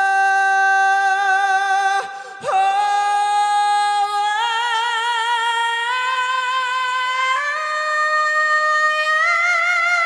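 A male singer's voice holds a long, high sustained note with vibrato, with almost no accompaniment. It breaks briefly for a breath about two seconds in, then climbs in steps to a still higher belted note near the end.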